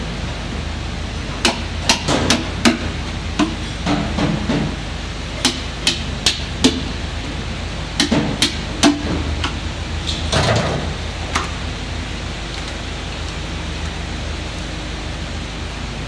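Hand tools knocking and prying at the windage tray of a Chrysler 5.7 L HEMI V8 block: a series of sharp, irregular metallic clinks and knocks, with a brief scraping rattle about ten seconds in. The knocks stop after about twelve seconds, leaving a steady low hum.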